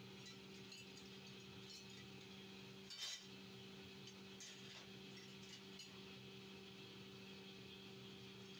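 Near silence over a steady low hum, broken by a light metallic click about three seconds in and a few fainter ticks: a small steel moulder's trowel working against the sand of a casting mould.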